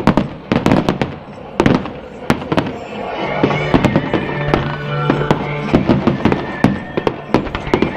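Fireworks going off: irregular sharp bangs and crackles, often several a second, with music playing under them.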